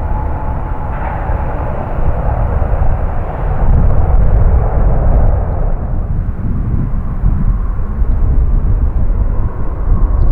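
Jet airliner passing close on final approach, its engines giving a loud, steady rumble with a mid-pitched roar that fades about six seconds in.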